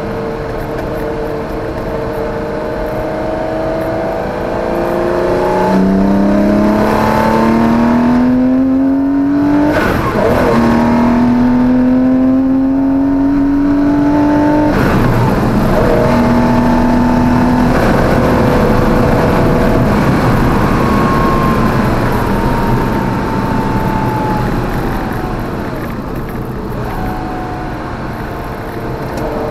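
Porsche 914/6's air-cooled flat-six engine heard from inside the cabin, revving hard up through the gears with two upshifts where the pitch drops, about ten and fifteen seconds in. After a short steady stretch the revs fall away as the driver lifts off.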